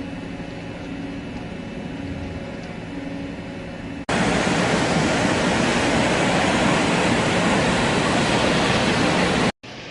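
Industrial microwave drying machinery running: a steady hum with a few steady tones, then, from about four seconds in, a much louder, even rushing noise that cuts off sharply near the end.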